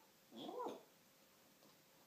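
A single short, meow-like animal call, bending in pitch, about half a second in, from the parrot or the dog.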